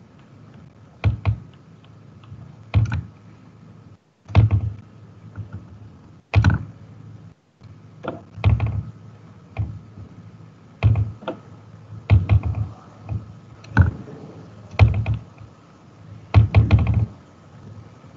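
Irregular dull knocks and clicks at a computer desk, about fifteen of them, roughly one a second, over a faint steady high tone.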